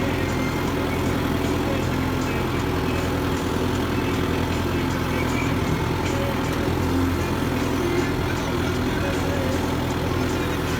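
Kubota MU5501 tractor's four-cylinder diesel engine running steadily at an even speed.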